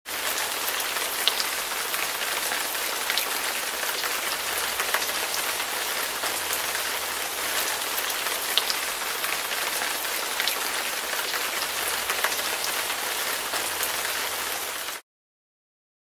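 Heavy rain falling steadily, an even hiss with scattered sharper drop hits. It starts suddenly and cuts off abruptly to dead silence about a second before the end.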